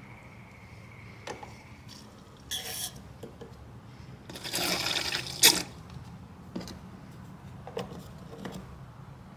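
Brake caliper piston being wound back in with a screw-type brake pad clamp tool, metal on metal. Two short scraping bursts, the second ending in a sharp click, among scattered light clicks and knocks from the tool.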